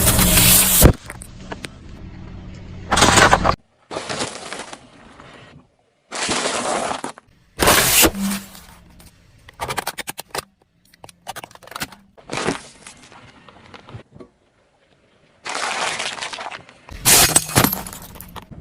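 Objects crunching and breaking under a car's tyre in a quick series of about ten short cracks and crunches. Each one starts and cuts off abruptly.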